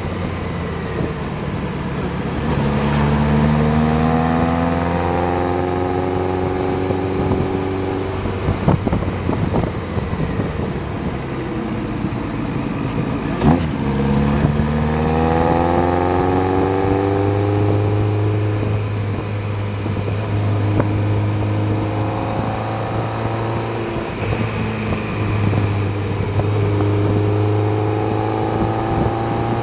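Motorcycle engine pulling through the gears, its pitch climbing in three long rising sweeps with drops between, over a steady rush of wind.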